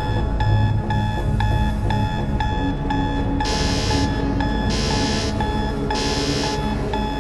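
Ticking about twice a second over a steady tone. From about three seconds in, it is joined by short bursts of ringing like an alarm bell, roughly once a second.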